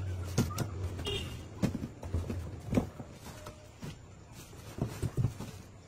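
Bunches of bananas being pulled from a cardboard box and set down, a handful of short knocks and rustles at irregular intervals.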